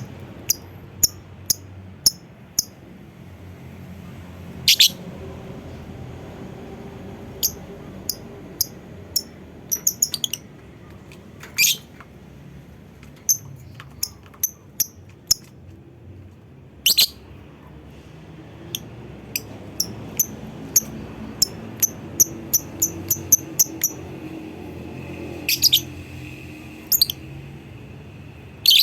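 Lovebird calling with short, sharp, high-pitched chirps, sometimes in quick runs, broken by a few louder, longer shrieks.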